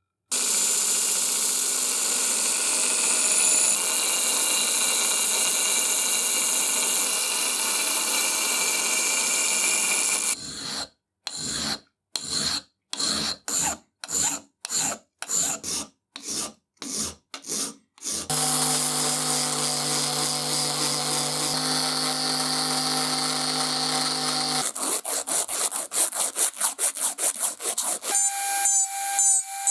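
Workshop tools working on the iron's parts in separate cut segments: a machine running steadily, then about a dozen separate scraping strokes with pauses between, then a machine with a steady low hum, then quick repeated scraping strokes near the end.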